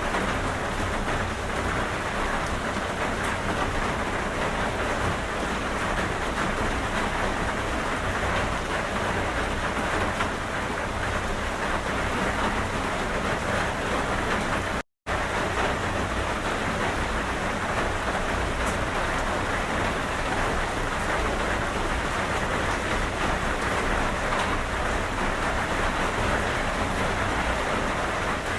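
Steady heavy rain falling, an even hiss of drops on surfaces. It cuts to silence for a split second about halfway through, then carries on as before.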